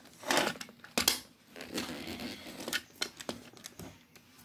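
Plastic parts of a Transformers Cyberverse Optimus Prime action figure being handled, folded and pushed into their tabs: a few sharp clicks with short scraping and rustling between them.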